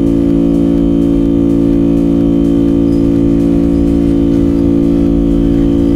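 Background music: sustained organ-like chords held steady.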